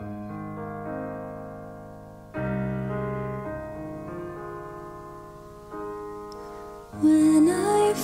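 Keyboard playing slow, sustained piano chords, changing every second or two, as a worship-song intro. About seven seconds in, a woman starts singing over it.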